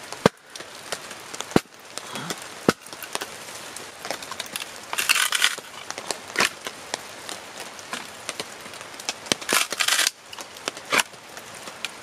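Riving a thin wooden shingle with a froe: three sharp knocks in the first three seconds, then the wood crackling and splitting on and off as the blade is levered down through the grain.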